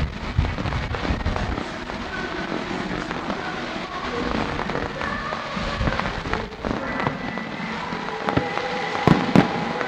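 Fireworks display going off: a steady run of crackles and bangs, with a few sharp, louder bangs near the end.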